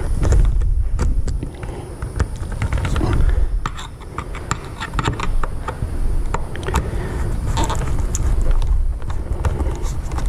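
Screwdriver and screw clicking and scraping against the windshield-header trim while hunting for the screw hole: many small irregular clicks over a low rumble of knocks and handling.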